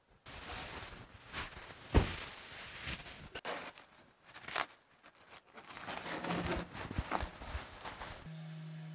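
Plastic sheeting rustling and crinkling in irregular handfuls as it is bunched up and pulled out of a wooden boat's cockpit, with a few light knocks. A steady hum takes over near the end.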